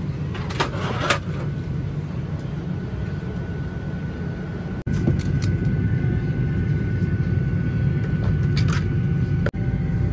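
Steady hum of a Boeing 737-900ER cabin's air conditioning at the gate, with a faint steady whine above it. A few rustling clicks come about a second in, and the hum gets louder about five seconds in.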